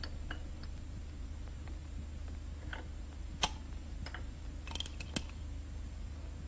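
Sparse light clicks and clinks of china being handled on a table, a small lidded china pot set down beside a mug on its saucer, with a sharper click about three and a half seconds in and a quick cluster near five seconds. A steady low hum runs underneath.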